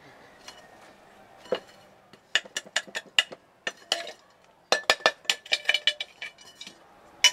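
A metal hand tool clinking and scraping against a sand-casting mold, rapid sharp metallic taps that ring briefly. After a single knock about a second and a half in, the taps come in two quick runs with a short pause between them, and a loud single clink comes at the very end.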